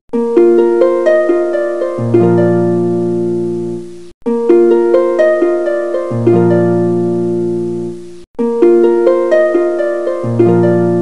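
Background music: plucked-string notes over held low notes, the same short phrase repeating about every four seconds, with a brief break between repeats.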